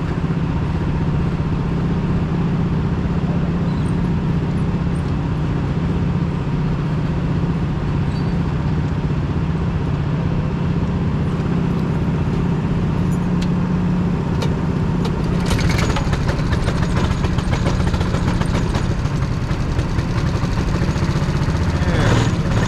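Small go-kart engine running steadily at a constant speed. From about two-thirds of the way in, more hiss and clicking join the engine.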